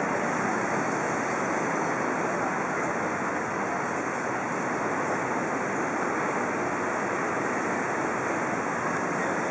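Steady, even rush of surf breaking on the beach.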